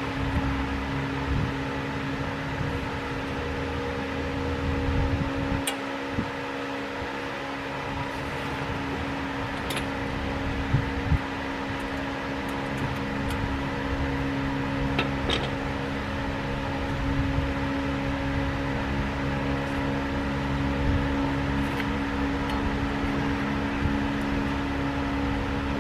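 Steady mechanical hum with a wavering low rumble. A few faint metal clicks come through it as a cotter pin is bent into place with needle-nose pliers in the castle nut of a tie rod end.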